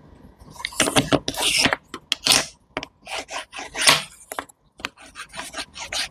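Close-miked scraping and crunching from fruit being worked with a utensil, in irregular strokes with short pauses, the loudest about two and four seconds in.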